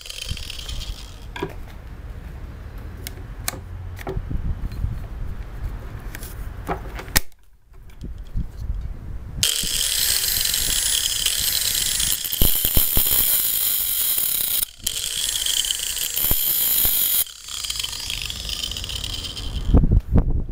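Angle grinder sharpening a chainsaw chain's cutters in place on the bar: clicking and rattling of the chain's links as it is moved along the bar, then from about halfway a loud, high grinding hiss that breaks off briefly twice before the clicking returns near the end.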